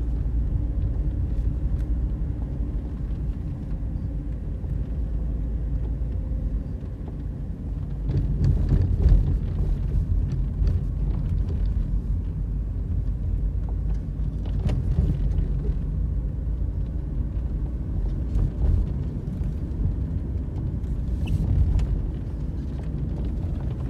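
A car driving slowly along a winding road: a steady low rumble of engine and tyres, with a few short knocks and rattles scattered through it.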